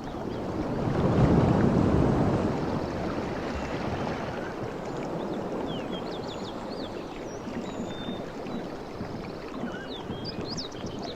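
Nature ambience: a steady rush of moving water that swells about a second in and then settles, with small birds chirping high from about halfway, more near the end.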